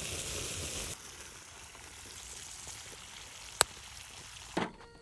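Shellfish sizzling and steaming in a kankan-yaki can over a campfire. The hiss is loud for the first second, then drops to a quieter sizzle. A single sharp click comes about three and a half seconds in, and a knock comes near the end.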